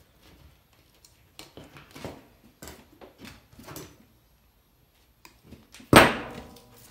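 Light clicks and rustles as wiring-harness wires and hand tools are handled on a wooden workbench, then one sharp knock about six seconds in, the loudest sound.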